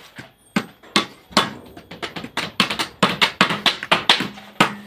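Hammer nailing wooden slats onto a fruit-crate frame: a quick, uneven run of sharp knocks, about three a second.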